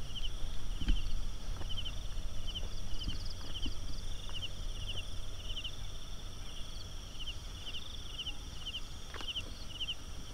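Night insects: a cricket-like chirp repeats about one and a half times a second over a steady high buzz of other insects. A low rumble of footsteps and camera handling is louder in the first few seconds, and a few small clicks come through.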